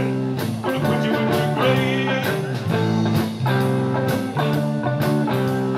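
Live blues-rock trio playing: electric guitar and bass guitar in a slow repeating riff over a Pearl drum kit, with bent, wavering guitar notes on top.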